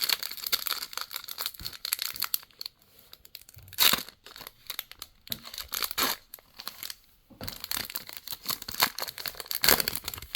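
Plastic-foil trading card pack wrappers crinkling and being torn open by hand, with sharp crackles about four seconds in and again near the end, and a brief lull around seven seconds in.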